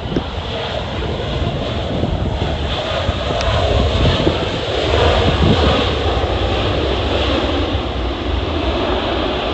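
Jet airliner passing overhead, its engine noise swelling to a peak about halfway through and then easing a little, with gusty wind buffeting the microphone.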